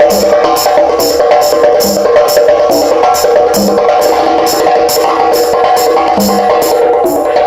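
Percussion music: a quick, steady beat of short high taps over a sustained melody, with a low drum hit every couple of seconds.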